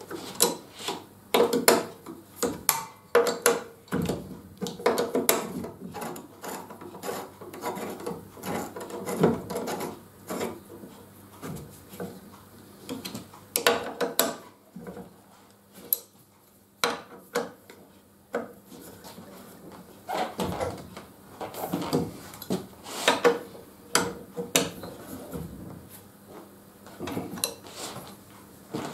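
Irregular clicks, knocks and scraping of metal parts as the clamps and arm of a circular saw blade sharpener are set up by hand with a T-handle hex key.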